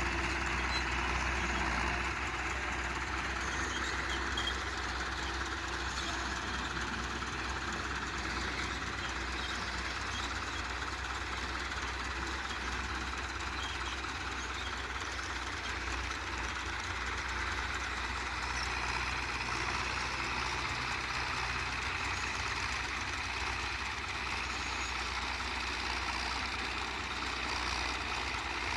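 Belarus 510.1 tractor's diesel engine running steadily under load while pulling a five-tine chisel plough through the soil.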